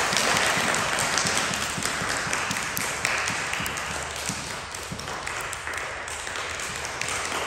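Audience clapping, thinning out through the middle and picking up again near the end.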